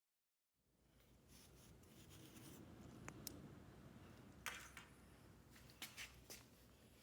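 Faint rubbing and scraping with a few light clicks, the sound of hands handling and sliding small pieces, starting abruptly after a short silence.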